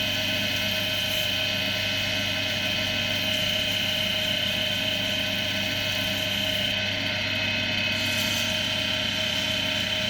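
Axminster AC240WL wood lathe running at a steady speed: a constant motor hum with a steady high whine.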